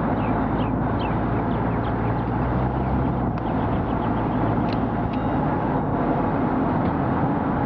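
Steady, even rumble and rushing noise of vehicle running, with no rise or fall. A bird's short downward-sliding chirps come in quick runs near the start and again about halfway through.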